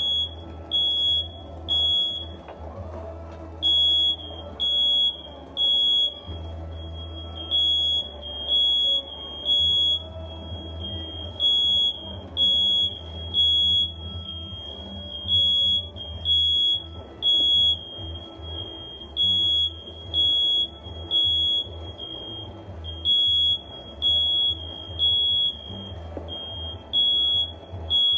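Smoke alarm sounding, high-pitched beeps in repeated sets of three, set off during the evaporator coil cleaning.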